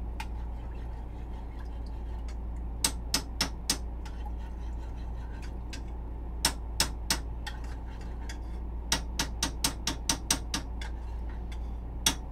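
Sharp clicks from hands working at pots on a stovetop, in short runs of about three or four a second, over a steady low hum.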